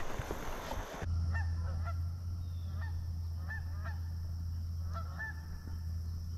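Geese honking, a loose string of short, faint calls over a steady low hum. In the first second there is a rush of water noise that stops abruptly.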